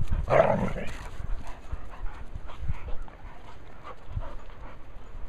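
Two dogs play-chasing: one gives a short, rough, noisy vocal sound in the first second, then panting and scuffling follow.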